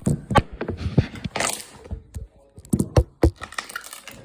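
A quick, irregular run of sharp clicks and pops mixed with short bursts of crackling and rustling.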